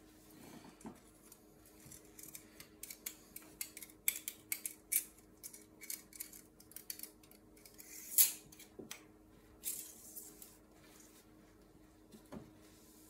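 Paper towel rustling and a metal automatic-transmission dipstick clicking and scraping as it is wiped and handled at its tube for a fluid-level check. It comes as a string of short, light sounds, the loudest about eight seconds in, over a faint steady hum.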